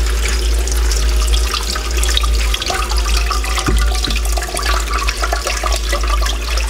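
Running water rinsing soaked, hulled mung beans in a metal colander, with hands rubbing the beans. The water pours steadily through the colander's holes into a bowl below.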